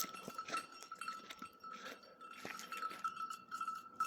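Faint clinking and ringing of bells worn by goats, sounding irregularly as the animals move.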